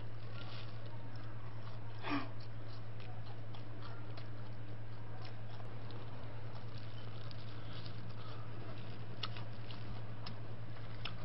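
Faint chewing and mouth sounds of eating fried chicken, with scattered small clicks and a few sharper ones near the end, over a steady low hum.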